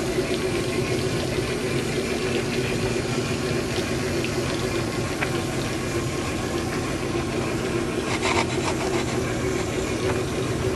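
Large-scale garden model train running on track, heard from a car riding in the train: a steady mechanical hum of the drive and wheels with light rattling.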